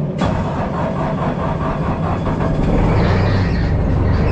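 2002 Bobcat S250 skid steer's diesel engine cranked on the starter in bitter cold after glow-plug preheating, catching about three seconds in and running.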